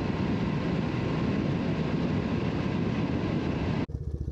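Motorcycle ridden at road speed, its engine running steadily under heavy wind noise. The sound cuts off suddenly near the end, leaving a quieter low rumble.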